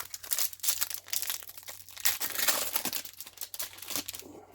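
Plastic booster-pack wrapper crinkling and crackling as it is handled, a dense irregular run of crackles.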